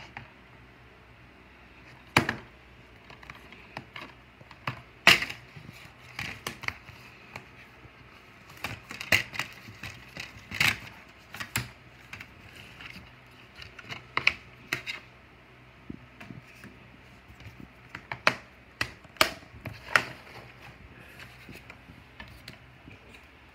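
Irregular sharp clicks and knocks of hard plastic being handled on a desk, a DVD case among the items, some in quick clusters and a few louder single knocks.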